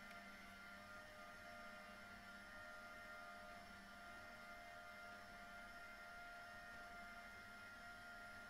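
Tubular motors of three motorized blackout roller shades running together as the shades roll up: a faint, steady electric hum with a few held tones.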